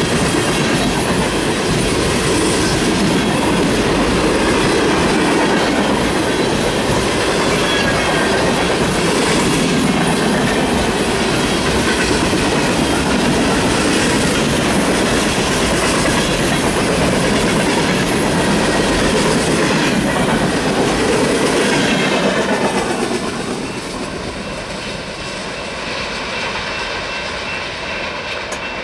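Fast freight train's cars rolling past at speed, a steady rush of steel wheels on rail with clickety-clack over the joints. About 23 seconds in, the sound drops and the hiss fades as the train moves away.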